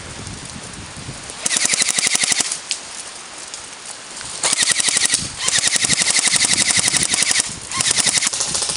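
Airsoft gun firing on full auto in rapid rattling bursts: a short burst about a second and a half in, then a long burst that runs on with one brief break near the end.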